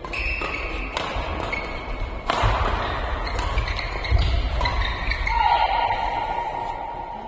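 Badminton rally on an indoor court: a few sharp racket strikes on the shuttlecock over heavy thudding footsteps, with high shoe squeaks on the court floor, one long squeal near the end.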